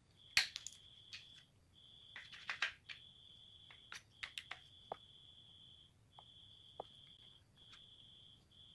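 Wooden rubber band gun being handled and reloaded: irregular sharp wooden clicks and clacks, clustered in the first three seconds and sparser later. A steady high-pitched tone comes and goes in stretches of about a second.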